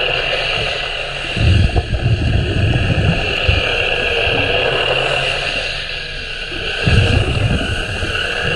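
Remora Solo rotary hull-cleaning brush running underwater against a boat hull, a steady high motor whine over a wash of scrubbing noise. Low rumbling surges come in about a second and a half in and again near the end.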